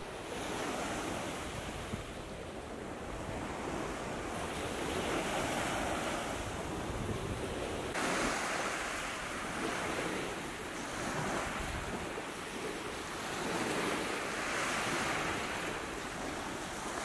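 Small waves breaking and washing up a sandy beach, the surf rising and falling every few seconds, with wind rumbling on the microphone.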